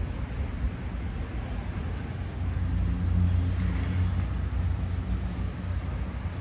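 Street traffic: the low engine rumble of a passing vehicle, swelling to its loudest about three seconds in.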